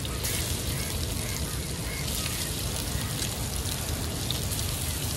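Fish sizzling as they fry in hot coconut oil: a steady crackling hiss that turns brighter just after the start, over a low rumble underneath.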